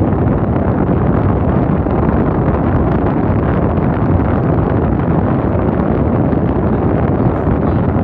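Air from a small electric blower rushing out of a PVC duct and buffeting the microphone: a loud, steady whooshing rush.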